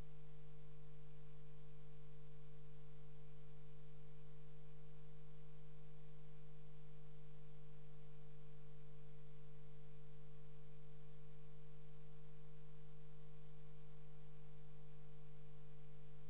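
Steady electrical hum: an unchanging low tone with a fainter higher tone over it, and nothing else.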